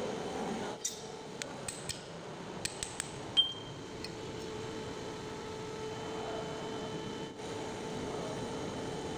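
Small metal clicks and clinks as the parts of a greasy steel tie rod end are handled and turned: about eight in quick succession, the last and loudest, about three and a half seconds in, ringing briefly. A steady workshop hum runs underneath.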